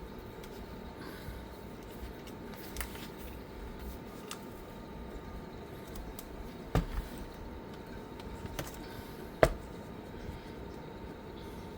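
Small clicks and taps of laptop parts being handled and fitted during reassembly, with two sharper knocks, the louder one about nine and a half seconds in.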